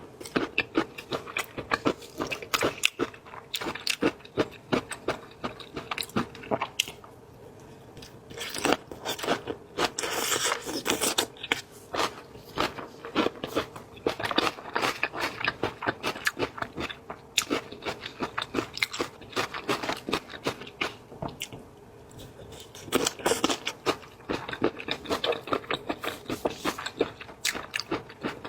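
Close-miked eating: someone biting into and chewing crunchy shrimp, in quick runs of crisp crunches with a few brief pauses.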